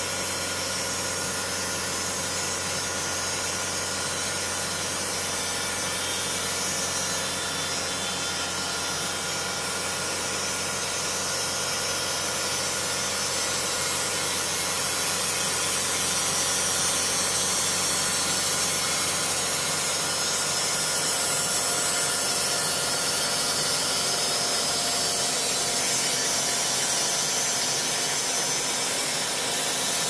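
Wood-Mizer LT80 band sawmill running and sawing lengthwise through a large log, its band blade cutting steadily with the machine's drive running.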